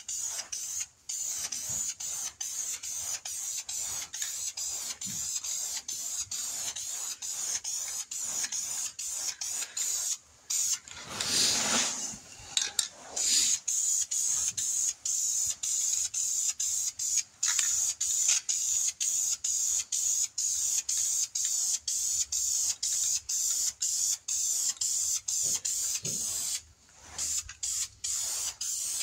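Aerosol spray paint can hissing as paint goes onto a steel running board, in a long run of short bursts of about two a second. A louder, fuller noise comes about twelve seconds in, and there is a short pause near the end.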